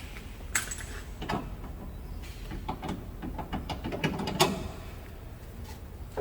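Scattered metal clinks and knocks of hand tools working the bolts on a pickup's rear shock mount, the sharpest about half a second in, after a second, and near four and a half seconds, with a low steady hum underneath.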